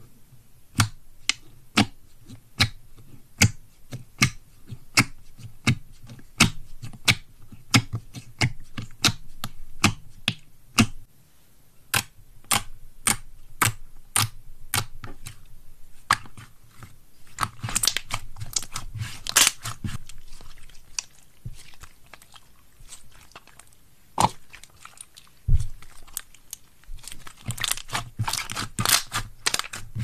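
Slime being pressed, stretched and kneaded by hand, giving sharp popping clicks, about one or two a second at first, with faster crackling runs later.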